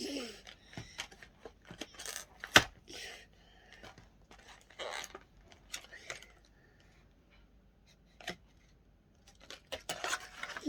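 Toy packaging being handled and opened by hand: scattered short rustles and tearing scrapes, broken by sharp clicks. The loudest is a single click about two and a half seconds in.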